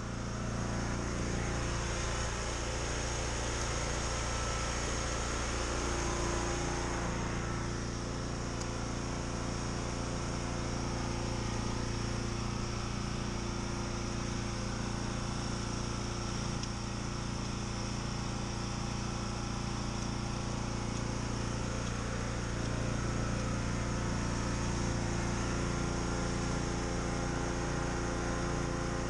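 Pressure washer running steadily at a constant pitch, driving water through a homemade steel conduit water-jet soil probe, with the hiss of water spraying from the pipe's top fitting.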